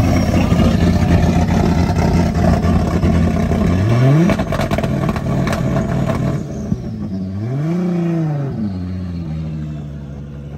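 Turbocharged Nissan Silvia S14 drift car's engine held at high revs for about four seconds, then climbing sharply with a few sharp cracks. It drops back to a steady idle, broken by two short throttle blips that rise and fall.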